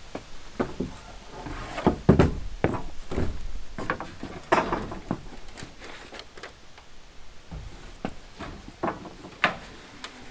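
Irregular wooden knocks and clunks with some scraping, as a cut board is handled and set in place.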